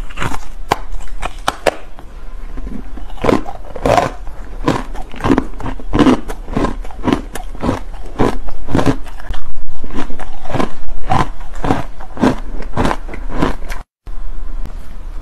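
Crumbly frozen ice being bitten and chewed close to the microphone: a rapid run of sharp crunches, several a second, that cuts out for an instant near the end.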